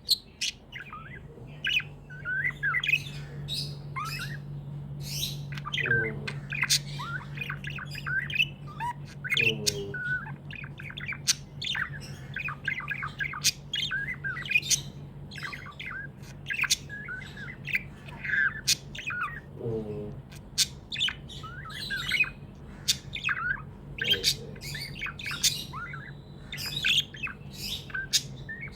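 Pet budgerigars chirping and chattering, a dense stream of quick high chirps and squawks, over a steady low hum.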